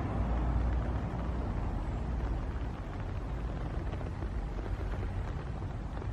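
Steady low rumble with a hiss over it, outdoor noise picked up by a compact camera's built-in microphone. There are no distinct events.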